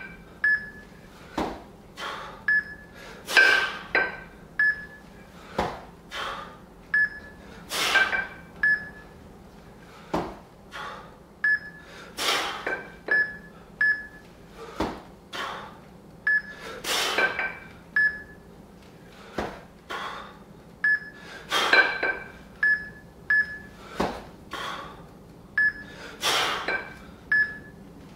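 Two-arm kettlebell jerks with 20 kg bells: a sharp breath with each rep, about every four to five seconds, with quicker breaths between. Short high electronic beeps from a fixometer come around each lockout.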